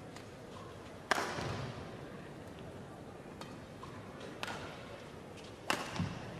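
Badminton rackets striking the shuttlecock in a rally: sharp cracks about a second in, near four and a half seconds and near six seconds, the first the loudest, with fainter taps between. A dull thud of a player's landing follows the last hit.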